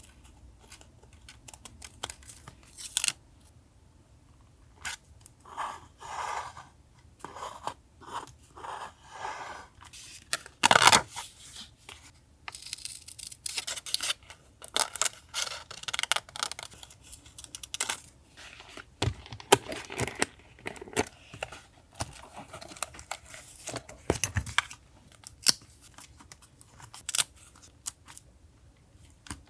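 Paper being handled for a journal collage: short, irregular bursts of tearing, rustling and cutting with light taps. One loud rip or crinkle comes about a third of the way in.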